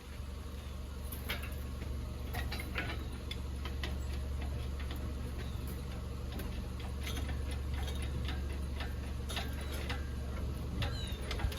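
Scattered light clicks and knocks over a steady low hum.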